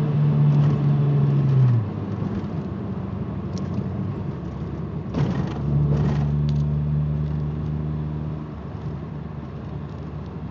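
Ford Escort ZX2's four-cylinder engine running on the move. Its steady hum drops away about two seconds in and comes back near the middle, with a couple of short rushes of noise just before. The engine has a bad misfire and a loose timing belt tensioner pulley that sets up a vibration below 2,000 rpm.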